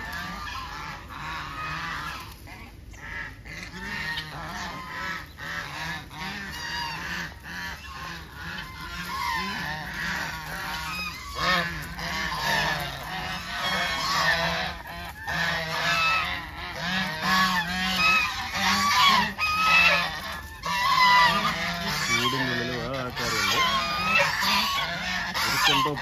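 A flock of white domestic geese honking and calling over one another while feeding, with the calls getting louder and busier from about halfway through.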